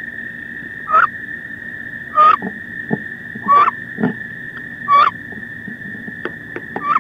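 Female wood duck calling five times, roughly every one and a half seconds, each a short call that bends in pitch. A steady high tone runs underneath, and there are a couple of dull thumps between the calls.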